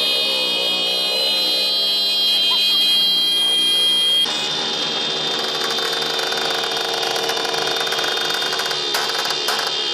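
Motorcycle horns held down and sounding steadily together over a crowd of motorcycles. About four seconds in the sound changes abruptly to a noisier din of engines and voices, with sharp pops near the end.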